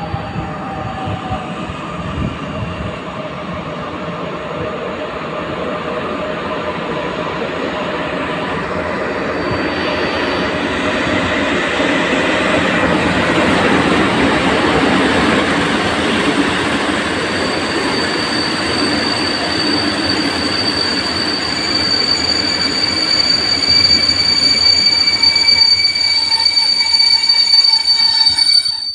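Passenger train hauled by an EP07 electric locomotive rolling past along the platform, its coaches rumbling on the rails and growing louder. A high, steady squeal builds through the second half.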